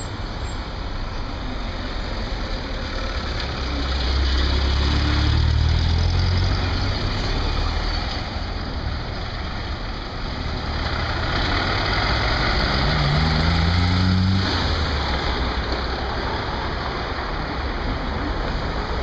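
City road traffic: cars, buses and minibuses driving past. It swells twice as vehicles pass close, about four to seven seconds in and again around eleven to fourteen seconds in, the second time with an engine rising in pitch as it pulls away.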